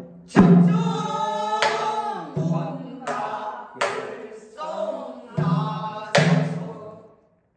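Pansori singing: held, wavering sung notes broken by about six sharp percussive strikes that keep the beat, the first the loudest. It fades out near the end.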